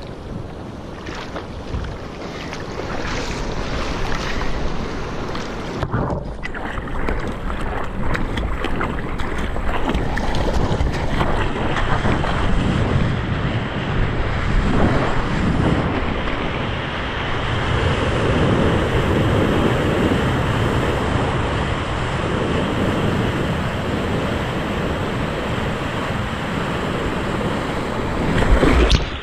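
Ocean surf: waves breaking and washing in, with wind blowing on the microphone. It grows louder about halfway through, and there is a brief low rumble near the end.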